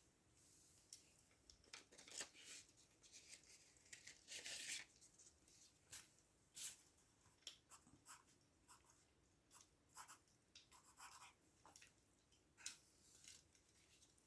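Faint keyboard typing: sparse, irregular keystroke clicks, with a longer scratchy rustle about four seconds in.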